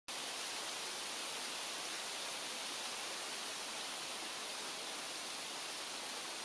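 Steady, even hiss with no distinct events in it, starting abruptly after a brief gap of silence.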